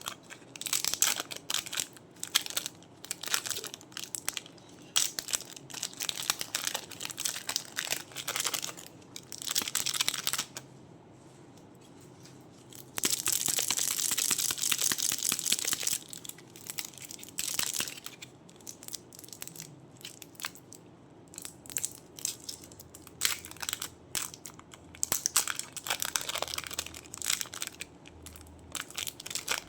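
Crunchy clay being squeezed and crushed by hand, giving dense crackling crunches in bursts. There is a short pause before the middle, then a longer unbroken stretch of crackle.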